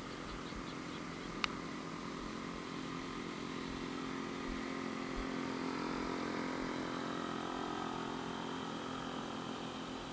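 Engine hum of a motor vehicle, a steady drone that grows louder towards the middle and then fades, as a vehicle passing by. A single sharp click comes about a second and a half in.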